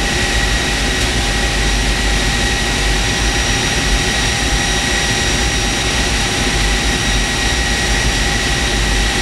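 Aircraft generator running steadily, powering the test harness: a loud, even rush with several constant high whining tones.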